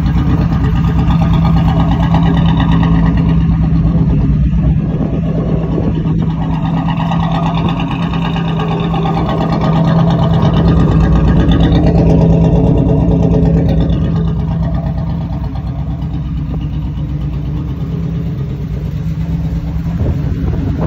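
1973 Buick Century's 350 V8 running at a steady idle, heard from outside the car.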